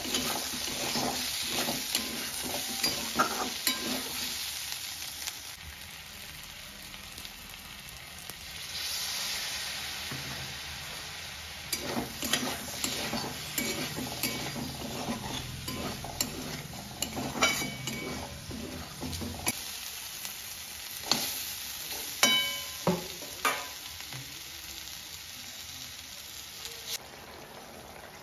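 Eggplant pieces frying in oil in a metal wok, sizzling while a metal spatula stirs them, with repeated clinks and scrapes of the spatula against the pan.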